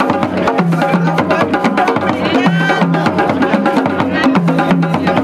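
Several hand drums played together in a fast, dense rhythm, with deep drum tones recurring under the quicker strikes. A voice briefly rises over the drumming about two and a half seconds in.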